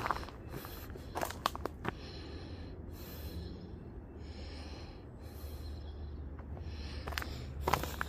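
Footsteps crunching on a gravel path in short clusters, with the walker's breathing close to the microphone and a steady low rumble of traffic underneath.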